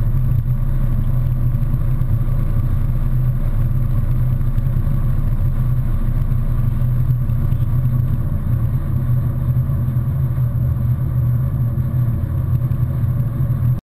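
Steady low rumble of engine and road noise inside a vehicle's cabin driving at highway speed.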